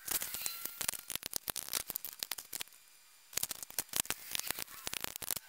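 Ratcheting PVC pipe cutter clicking rapidly as it is squeezed through PVC pipe, in two runs of quick clicks with a short pause between them.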